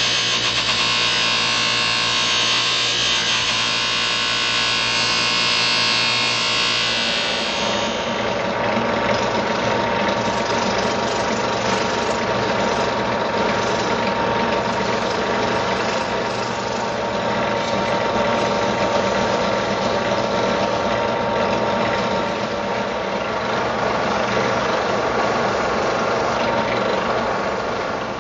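Workshop power tool running steadily, with a bright, high edge to its sound that gives way to a lower, broader noise about seven seconds in.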